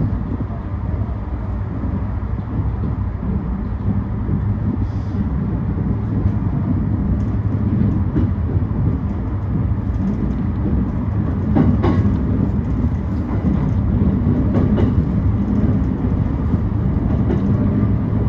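JR E235 series 1000 electric multiple unit running on the Yokosuka Line, heard from inside the leading car: a steady low rumble that grows gradually louder. A few sharp clicks come from the wheels passing over rail joints about two-thirds of the way in.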